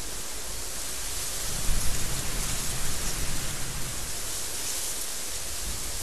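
Strong desert wind blowing steadily with a high hiss, gusting harder from about a second and a half in and buffeting the microphone with a low rumble for a couple of seconds.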